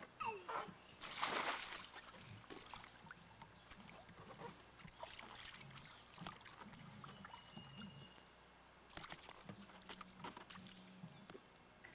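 Water splashing in a shallow plastic wading pool as a toddler slides in, with the biggest splash about a second in, then lighter sloshing and splashes as the child moves and stands in the water. A steady low hum runs underneath.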